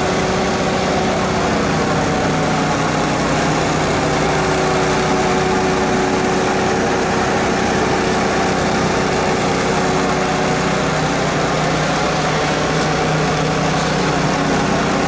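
An engine running steadily at idle: a constant, unchanging hum with no revving.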